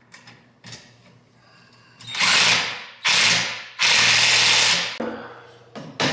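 A power tool, as used on exhaust clamp and hanger hardware, runs in three short bursts. Near the end, sharp hammer knocks begin at about three a second.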